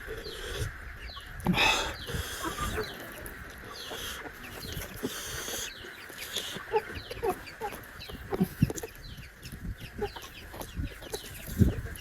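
Close-up mouth sounds of eating buffalo curry and bone marrow: chewing, lip smacks and wet clicks, with one louder, longer slurp about a second and a half in.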